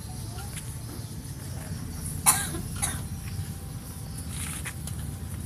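A hushed crowd with a steady low hum behind it. One sharp, loud cough comes about two seconds in, with a smaller one just after.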